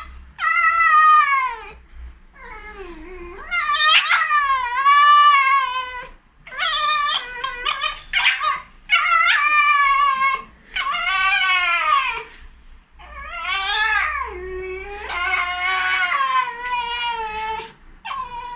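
Pet black-silver fox (a domesticated red fox) squeaking: about eight high-pitched, drawn-out whining calls in a row, many sliding down in pitch, with short breaks between them. The owner takes it for the fox's grumpy mood on waking.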